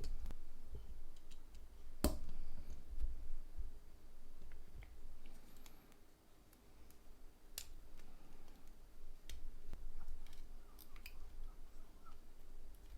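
Small plastic phone parts handled and fitted together during reassembly of a Nokia 6151: scattered sharp clicks and snaps, two louder ones about two seconds in and past the middle, over faint handling rumble.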